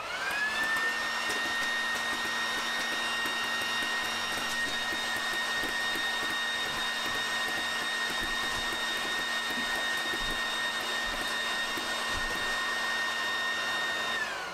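Electric leaf blower switched on, its motor whining up to a steady high pitch over a rush of air. Its intake is sucking ping pong balls in through a plumbing-pipe barrel. Near the end it is switched off and the whine starts to fall as the motor winds down.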